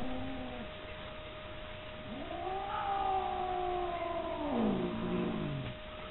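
Siamese cat yowling: a short low call at the start, then one long drawn-out yowl of about three and a half seconds that rises, holds, and falls in pitch at the end.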